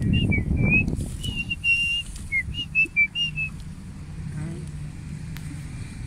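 A run of about a dozen short, clear whistled notes, some held and some gliding down in pitch, over a low rumble that fades after the first second or so.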